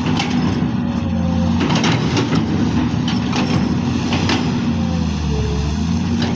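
Komatsu PC200LC excavator running steadily at work, its diesel engine's low drone under a faint whine that rises and falls, with scattered knocks and clatter.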